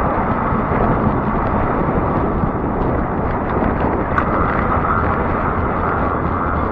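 Wind buffeting the microphone of a fat-tire electric bike moving along an asphalt road, with steady tyre and road rumble. A faint steady whine joins about four seconds in.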